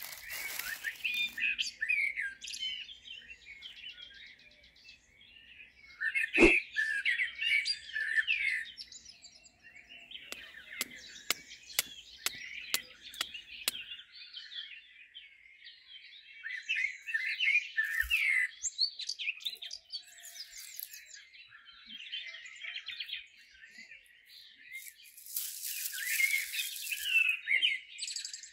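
Small wild songbirds chirping and trilling throughout. A single sharp thump about six seconds in, a run of sharp clicks, about three a second, from about eleven to fourteen seconds, and dry grass rustling near the end.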